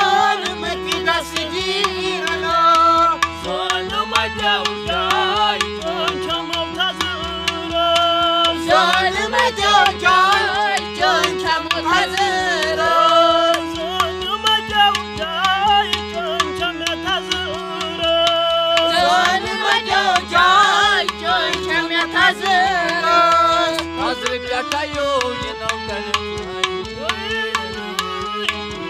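Folk song: men singing to harmonium, with a plastic water pot drummed by hand as a pot drum. Held harmonium chords run under the sung melody and the quick strokes of the pot.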